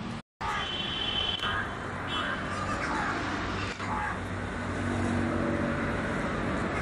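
Steady outdoor background noise with a low hum, and birds calling every second or so; the sound drops out briefly near the start.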